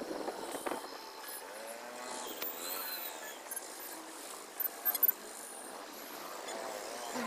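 Road traffic noise heard while riding a two-wheeler, with wind buffeting the microphone in the first second. A few short, sharp knocks come about five seconds in.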